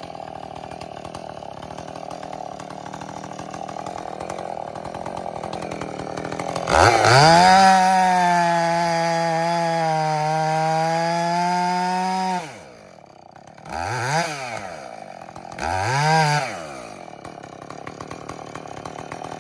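Husqvarna 450 two-stroke chainsaw idling, then opened to full throttle at about seven seconds in and held there for about six seconds before dropping back to idle. It is then revved twice briefly and settles back to idle.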